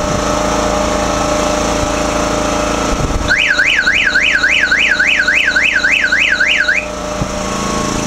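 Tilt alarm of an AmeriQuip Eagle 40H towable boom lift sounding. It is a warbling electronic tone that rises and falls about three times a second, starts about three seconds in and stops after about three and a half seconds. It signals that the machine is not level within its 4.5-degree slope tolerance, an unsafe level zone. The lift's engine runs steadily underneath.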